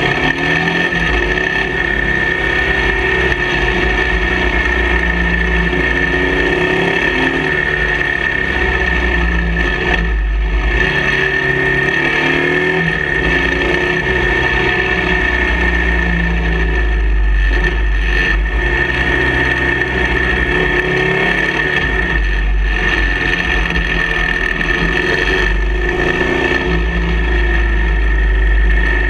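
Cruiser motorcycle's engine running at road speed, its pitch rising and falling several times as it is throttled through curves, under heavy wind rumble on the bike-mounted microphone. A constant high whine sits over it.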